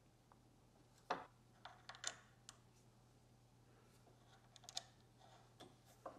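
Handling clicks and knocks at a hand-lever arbor press, as the parts are set under the ram and the press handle is swung down: about half a dozen sharp, separate clicks, loudest about a second and two seconds in and again just before five seconds.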